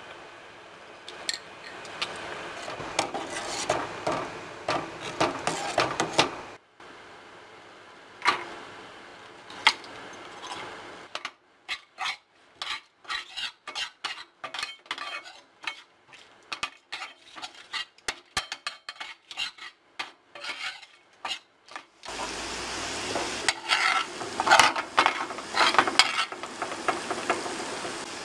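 Food sizzling in a frying pan while a utensil stirs and clinks against the metal. In the middle comes a run of short, separate taps and scrapes with quiet gaps between them, and near the end the sizzling and stirring grow louder again.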